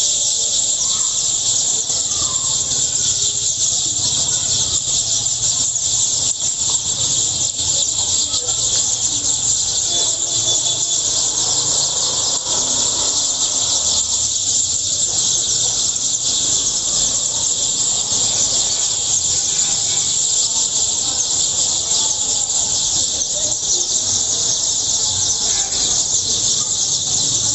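A large flock of small birds chirping all at once, a dense, continuous high-pitched din with no pauses.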